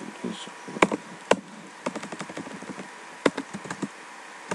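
Computer keyboard keystrokes: scattered single clicks, with a quick run of taps about two seconds in and a few more near the end.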